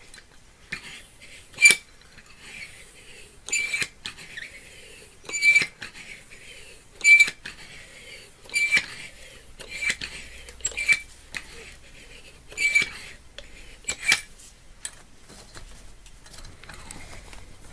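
Sharp metallic clinks, each with a brief ring, about ten of them at fairly even spacing roughly every one and a half to two seconds: metal knocking on metal during work on a bicycle wheel.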